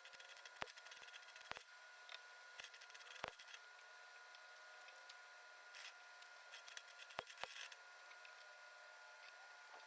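Near silence: a faint steady hum with a few scattered small clicks.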